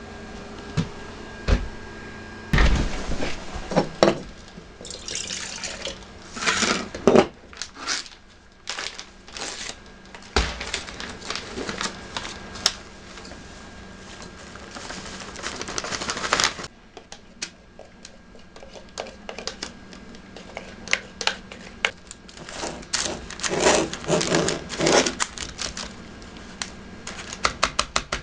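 Kitchen handling sounds: a muffin-mix pouch rustling and its dry mix pouring out in a steady stream that stops abruptly, then a plastic spoon stirring batter in a parchment-lined foil pan, turning into fast regular scraping ticks near the end.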